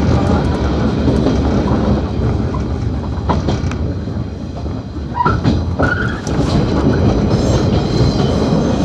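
A JR East 115-series electric train running, heard from its front cab, its wheels clattering over the points as it crosses over to another track. There are brief high squeals about five and six seconds in.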